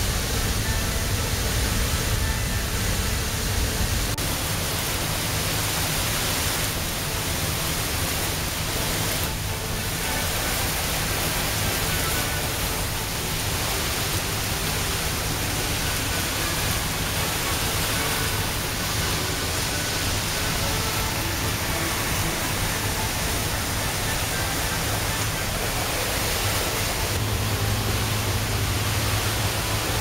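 Flood-swollen outflow water rushing and churning below a waterfall in a steady roar: a lake at flood level pouring its overflow into an underground drain channel.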